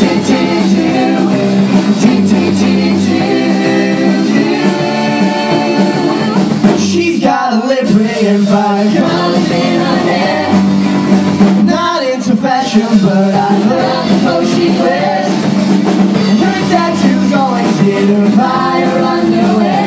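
Live band performance: several singers singing together at their microphones over a band with drums.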